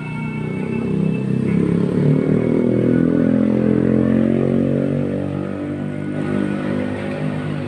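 A motorcycle engine running close by, loudest in the middle as its pitch rises and then eases back down.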